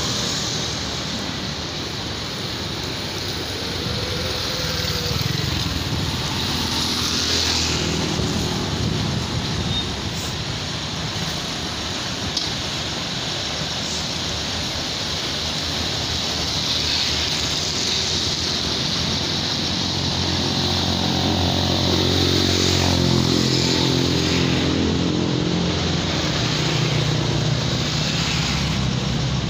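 Street traffic passing on a wet road, then a Hino diesel coach's engine running close by, its low engine note the loudest part from about two-thirds of the way in.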